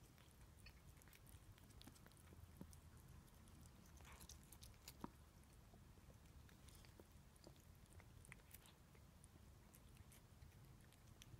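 Faint chewing of a cat eating pieces of Chinese broccoli from a plate: scattered small crunches and clicks, two sharper ones a few seconds in, over a low steady room hum.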